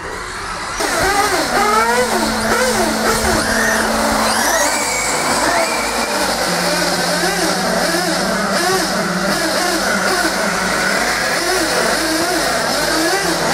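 Several radio-controlled 1/8-scale GT race cars lapping a track, their motors whining up and down in pitch over and over as they accelerate and slow, with several cars overlapping. The sound gets louder about a second in, and a steady lower hum runs underneath.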